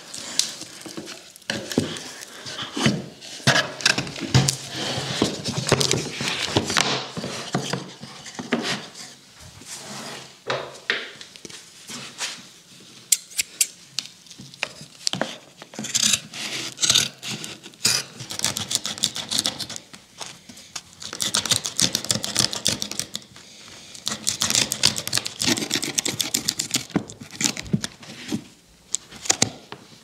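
Hands rubbing and pressing canvas cloth onto a panel of glued wooden tambour slats. Scratchy cloth rubbing comes in uneven bursts, mixed with many small clicks and taps from the slats being handled.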